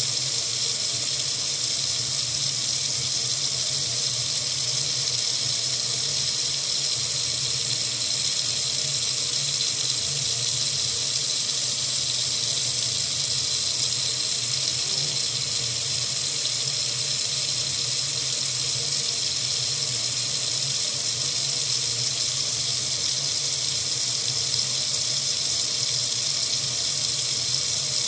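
Water running steadily from a faucet, a constant hiss.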